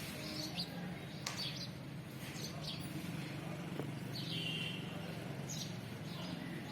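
Birds chirping: short chirps scattered throughout, with one longer call about four seconds in, over a steady low hum.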